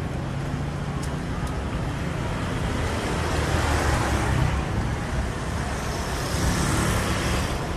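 Street traffic: the steady noise of vehicle engines and tyres, swelling as vehicles pass around the middle and again near the end.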